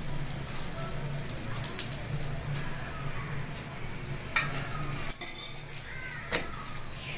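Oiled dal puri frying on a hot iron tawa, sizzling steadily, with a few short clicks of the utensils in the second half.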